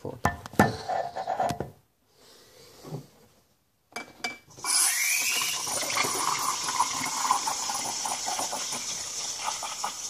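A few knocks and clatters, then from about five seconds in the DeLonghi EC220's steam wand hisses steadily as it steams milk in a mug.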